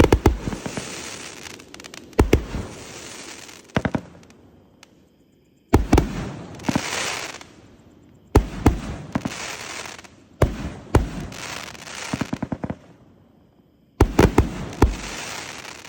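A 208-shot 'Magnificent Milky Way' fireworks cake firing in volleys: clusters of sharp bangs, each followed by a crackling hiss that dies away, with short pauses between volleys. The final volley comes near the end.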